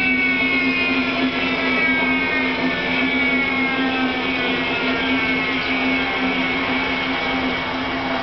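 Williams FJ44-3A turbofan turned over by its electric starter-generator without being lit, for a compressor wash: a whine of several tones falling steadily in pitch as the rotor slows, over a steady low hum.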